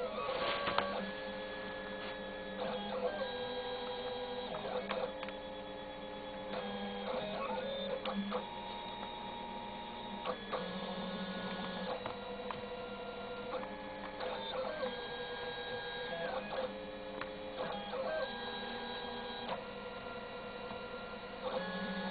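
Stepper motors of a homemade PVC CNC machine, driven by a home-built bipolar stepper driver, whining in steady tones that jump to a new pitch every second or two as the axes move at changing speeds. A short knock about half a second in.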